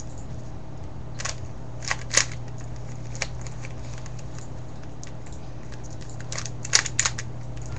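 Scattered sharp plastic clicks of a Rubik's cube being handled and turned, a few in the first seconds and a quick cluster near the end, over a steady low hum.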